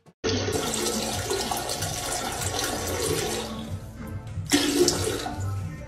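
A toilet flushing: a rush of water that starts suddenly and thins out after about three and a half seconds. Two brief louder sounds follow about four and a half seconds in.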